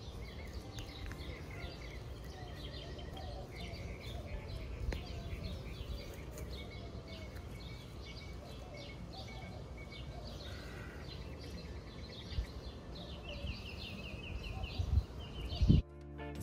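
Small birds chirping and singing continuously over a low outdoor rumble, with a hand digger chopping into grass turf: a few sharp thuds near the end. Music comes in just before the end.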